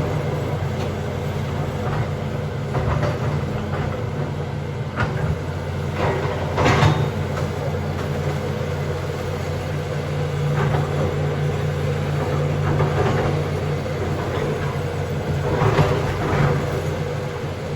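John Deere backhoe's diesel engine running steadily, with a few knocks or clanks over it, the loudest about seven seconds in and again near the end.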